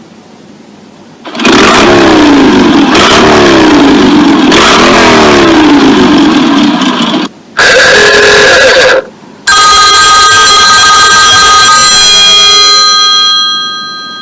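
Three iPhone classic alarm tones played back to back, boosted until they distort. First the 'Motorcycle' tone, an engine sound revving up and down over and over for about six seconds. Then a short 'Old Car Horn' honk, and then the 'Old Phone' bell ringing and fading out.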